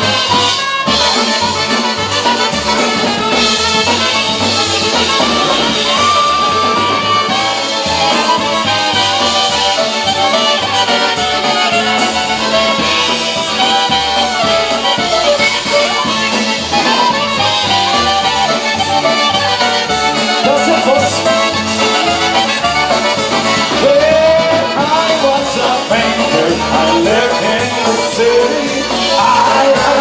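Live polka band playing an instrumental break: trumpet and saxophone over accordion, concertina and drums at a steady polka beat. Voices join in near the end.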